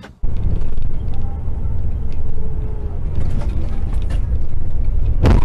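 Low, steady rumble of a semi-truck's engine and road noise heard inside the cab, with light creaks and rattles of the cab. A single sharp, loud knock comes near the end.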